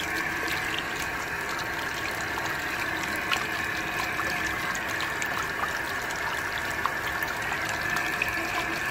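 Tap water running steadily over a hand and splashing into a washbasin, with small scattered splash ticks.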